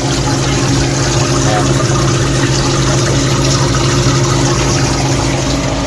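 Hoshizaki cube ice machine running: a steady mechanical hum with a constant low tone and a hiss of noise over it, from its refrigeration compressor, fan and water pump working through the freeze cycle.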